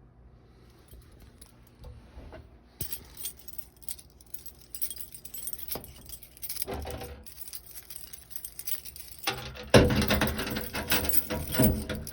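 Irregular clinking and rattling that starts faintly, grows louder, and is loudest over the last two seconds or so.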